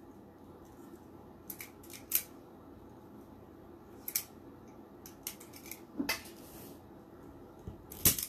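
Scattered sharp clicks and snips of hand tools being picked up and worked, the loudest a snip about eight seconds in as cutters clip the zip ties holding the wreath's petals.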